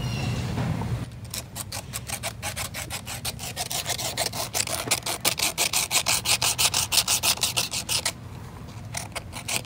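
Small plastic glue-puller tab rubbed by hand back and forth on a sanding disc, scuffing its smooth face so hot glue will grip: a run of quick, even scratchy strokes that stops briefly near the end and then starts again.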